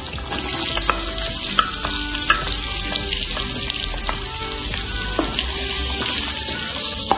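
Sliced onions frying in oil in a pan: a steady sizzle with scattered sharp clicks.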